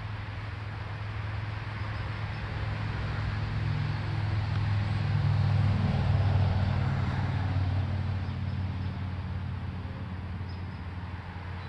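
A motor vehicle passing at a distance: a low engine rumble that swells to its loudest about halfway through and then fades away.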